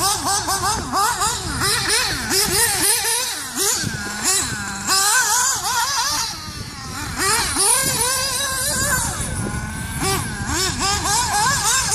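Mugen MBX6 off-road RC car's engine revving up and down over and over as it is driven, its pitch rising and falling every second or so, with a steady hiss on top.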